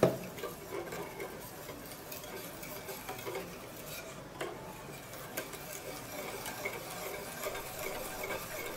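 Wire whisk stirring milk into a butter-and-flour roux in a stainless steel pot, with a steady scratchy swish and irregular light clicks of the wire tines against the pot. A single sharp knock comes right at the start. The constant whisking keeps the mixture smooth and free of lumps.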